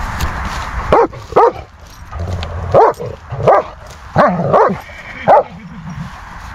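Long-haired German Shepherd barking at horses across a pasture fence: seven short, loud barks, mostly in pairs. It is the shepherd's urge to guard and herd the animals.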